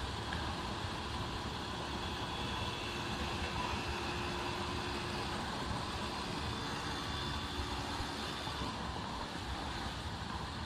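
Honda Wave 125 underbone motorcycle riding at steady speed: its single-cylinder four-stroke engine runs evenly under a constant rush of wind and road noise.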